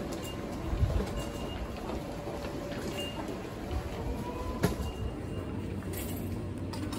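Railway station ambience: a steady low rumble typical of trains in the station, with two short thumps, about a second in and a little past halfway, and faint short beeps now and then.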